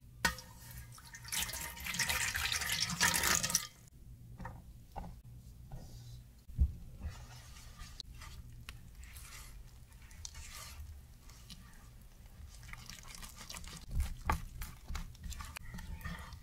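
Water poured into a stainless steel container onto dry yeast for a couple of seconds, starting about a second in. After that, a silicone spatula stirs flour and water into a wet poolish batter, with soft scraping and tapping against the metal tin.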